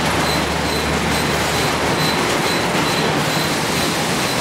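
Fish-flake factory machinery running with a loud, steady noise and a faint high squeak repeating about twice a second.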